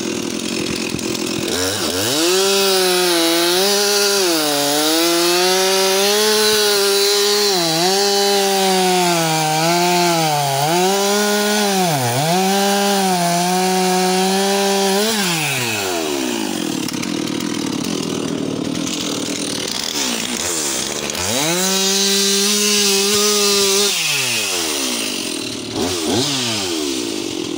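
Stihl MS 362 two-stroke chainsaw at full throttle cutting through acacia (black locust) logs, its pitch sagging and recovering again and again as the chain bites. About halfway it falls back to idle, then revs up for another short cut and drops to idle again near the end.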